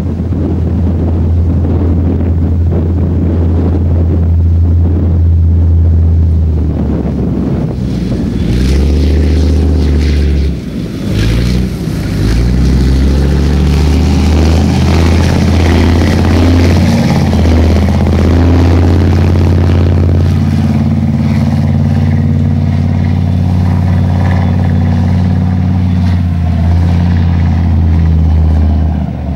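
Main battle tank driving across a field: a loud, deep engine drone with its running gear. The engine note shifts and bends through the middle as the tank changes speed, with a short dip about eleven seconds in, then settles into a steady drone.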